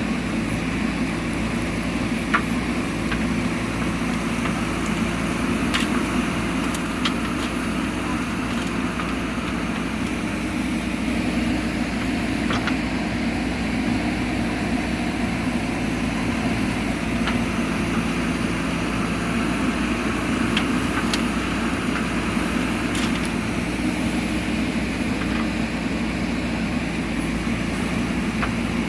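Heavy diesel machine engine running steadily at a constant pace, with a few faint clicks over it.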